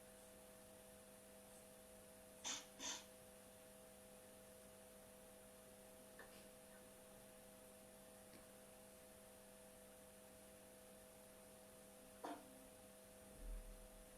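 Near silence with a steady electrical hum, broken by a few faint short noises, two of them close together about two and a half seconds in.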